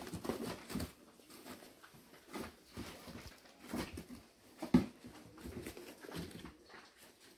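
Rustling and scuffling of a fabric backpack as kittens climb and shift about inside it, in irregular bursts, with one sharp knock a little under five seconds in.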